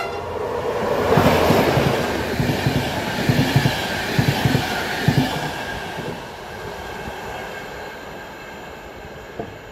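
Express passenger train passing at speed: a loud rush of wheel and air noise with a quick run of clattering thumps from the wheels over the rail joints, then dying away as the last coaches go by.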